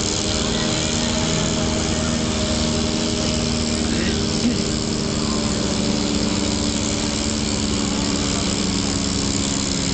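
Tractor engine running steadily under load as it pulls a weight sled down the track, with voices in the background.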